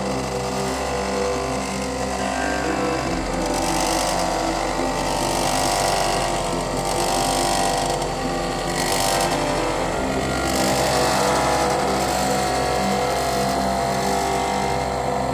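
Homemade mini wood lathe driven by a salvaged water-pump electric motor, running steadily with a hum as it spins a wooden blank; a rushing hiss swells and fades several times.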